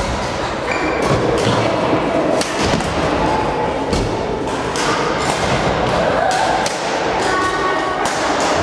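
Badminton play in a reverberant sports hall: repeated sharp racket hits on shuttlecocks and thuds of feet on the court floor, over a steady echoing hall din. A short squeak comes near the end.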